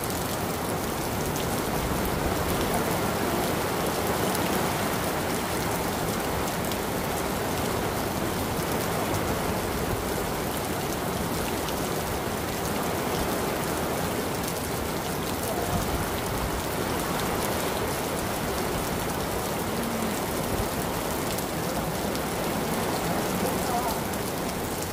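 Heavy rain falling steadily, a dense, even downpour.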